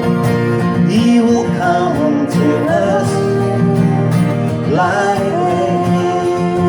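Worship-song music: steady chords with a melody line that slides up between notes a few times.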